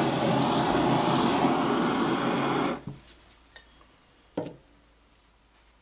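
Handheld gas torch flame hissing steadily over a fresh acrylic pour, the step that pops surface bubbles and brings up cells. It cuts off suddenly about three seconds in. A few light knocks follow, the loudest a little after four seconds in.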